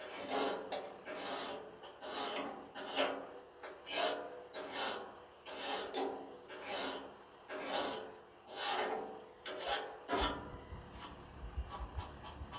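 Hand metal file rasping back and forth across the steel blade of a pair of loppers, in regular strokes a little faster than one a second, sharpening the cutting edge. The filing stops about ten seconds in, followed by low thumping noise.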